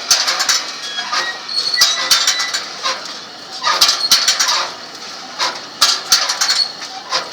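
Jean Tinguely's Heureka kinetic sculpture running: its metal parts squeak and scrape in short high squeals, among irregular clanks and clicks.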